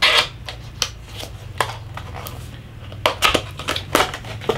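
Cardboard retail box being opened by hand, its top flap prised loose and pulled up. A burst of crackling at the start, then scattered sharp cardboard clicks and creaks, with a quick cluster of them about three seconds in, over a low steady hum.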